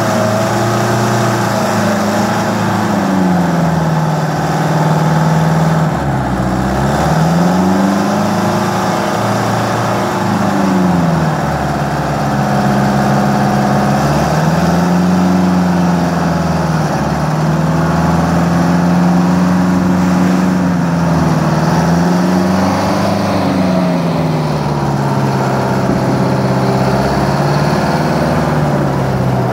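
Michigan 175-A wheel loader's diesel engine running hard, its pitch sagging and climbing back several times as the machine digs into the pile and lifts its bucket under load.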